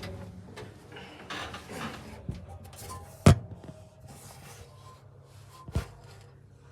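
Air handling unit giving a faint steady low hum, with a few sharp knocks over it; the loudest knock comes about three seconds in.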